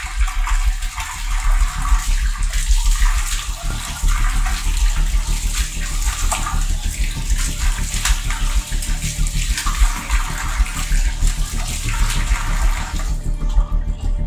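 Water running hard from a wall tap, splashing over a hand held in the stream. It starts abruptly and cuts off about a second before the end.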